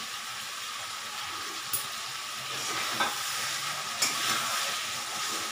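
Boiled potatoes sizzling in hot oily curry masala in a kadai, stirred with a spatula, with a steady frying hiss and a few sharp knocks of the utensil against the pan.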